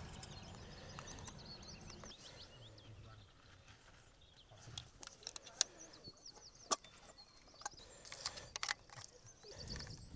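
Small birds chirping repeatedly in short high calls, with a few sharp clicks in the second half.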